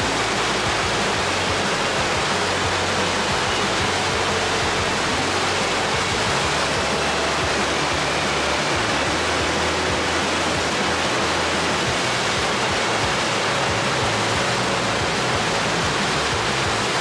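Steady rush of white water pouring over a low concrete river weir and churning in the standing wave below it.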